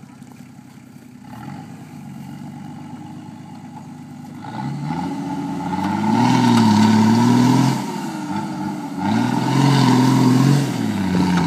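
Nissan Patrol GR 4x4's engine running low, then revving up under load about four seconds in. It eases off briefly and revs hard a second time as the truck pushes a heavy poplar log through dirt. Each surge comes with a hiss of spinning tyres throwing up dirt.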